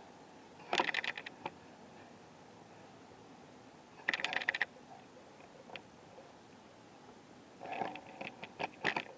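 Three short bursts of light, rapid clicking and rattling, like small hard objects being handled: one about a second in, one near the middle and a longer one near the end.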